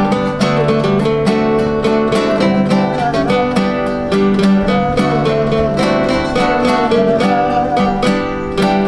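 Nylon-string classical guitar fingerpicking a sertanejo melody, with a second acoustic guitar accompanying, as an instrumental introduction before the singing.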